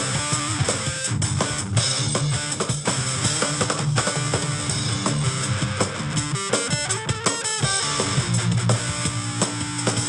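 Instrumental rock music: electric guitar riffs over a drum kit, with a fast run of notes about two-thirds of the way through.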